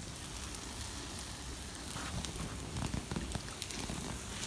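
Wood campfire crackling: scattered small pops over a steady hiss.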